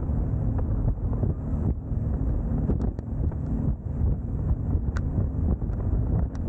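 A boat running fast on the water, its engine rumbling low under heavy wind buffeting on the microphone.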